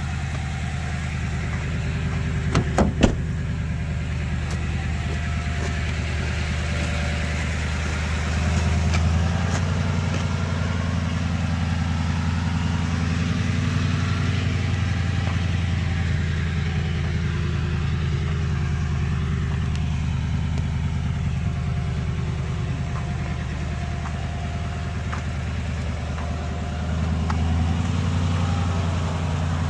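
Second-generation Toyota Tundra pickup's engine running steadily, getting louder about eight seconds in and again near the end. A few sharp clicks about three seconds in.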